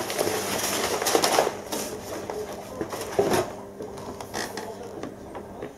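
Crumpled packing paper rustling and crinkling as hands dig through a shipping box, dying down after about a second and a half. A few light knocks follow as a cardboard box is lifted out and handled.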